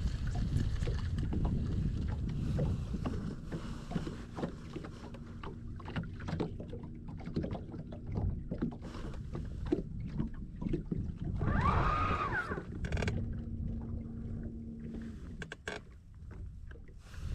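Handling noise on a small fishing boat: scattered knocks and taps over water lapping at the hull, with wind rumbling on the microphone in the first few seconds. A brief whine rises and falls about twelve seconds in.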